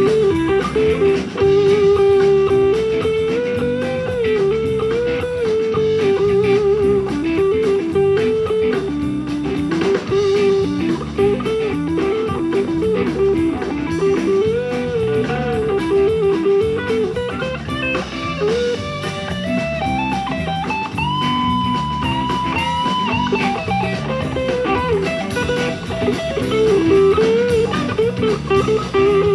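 Live blues-rock band playing an instrumental break: electric guitars over bass and drum kit, with no singing. The lead line climbs to high held notes about two-thirds of the way through, then drops back.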